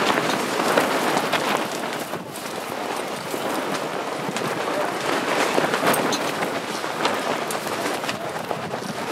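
Wind buffeting the microphone: a gusty rushing noise that swells and eases.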